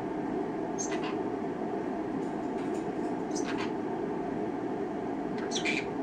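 Green-cheeked conure giving three short, high-pitched chirps, about a second in, midway and near the end, the last the loudest, over a steady low background hum.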